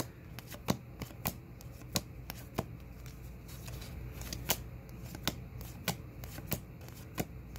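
A stack of 2022 Topps baseball cards being flipped through one by one by hand: a sharp flick of card stock each time a card is slid to the back, about one to two a second.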